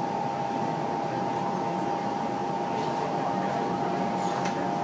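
Steady running noise of an MRT train heard from inside the carriage, with a constant whine held on one pitch throughout.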